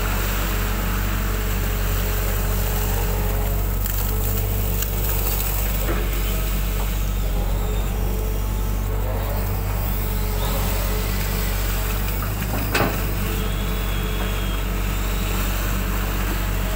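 Hitachi hydraulic excavator running steadily under load as it digs and dumps ditch mud, heard from the operator's cab, with a whine that comes and goes as the arm moves. One sharp knock about 13 seconds in.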